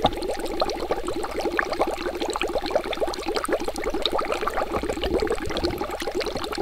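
Water bubbling continuously, a dense stream of small bubbles in quick succession.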